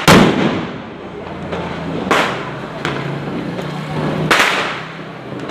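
Diwali firecrackers bursting: three loud bangs about two seconds apart, each dying away in a short echo.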